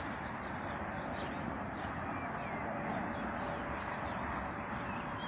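Many short, quick bird chirps over a steady rushing background noise.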